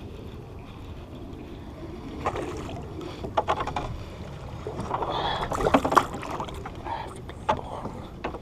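Wind buffeting the microphone, then from about two seconds in a run of splashes and sharp clicks as a hooked bass is brought in and landed, loudest a few seconds later.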